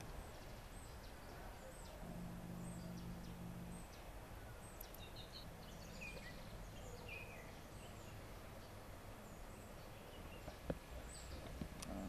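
Faint outdoor garden ambience with birds calling: a short high call repeated over and over, and a few lower chirps about midway. A low steady hum runs underneath, and there is one sharp click near the end.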